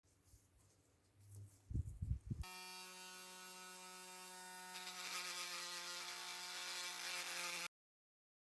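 A few low knocks of handling, then a small electric power tool switches on and runs steadily with a buzzing hum and a high hiss that grows louder about halfway through; it cuts off abruptly near the end.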